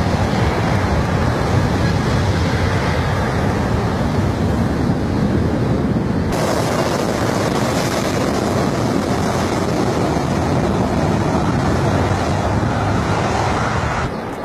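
Airliner jet engines at takeoff thrust, a loud steady roar, with the jet blast buffeting the microphone as wind noise. The sound changes character about six seconds in, turning brighter and hissier.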